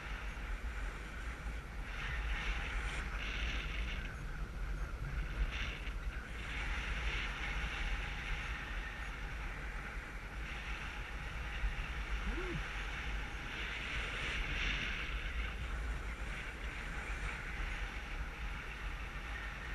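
Airflow of paraglider flight rushing over a GoPro's microphone: a steady wind rush with a deep rumble that swells and eases every few seconds.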